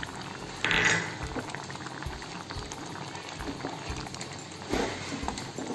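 Prawn and potato curry simmering in a pan, the thick gravy bubbling with a steady fizz of small pops. There is a brief louder swell of bubbling about a second in and again near the end.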